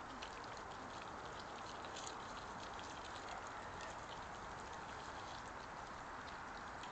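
A group of European badgers feeding on the ground, giving many small, irregular clicks and crunches of chewing over a steady hiss.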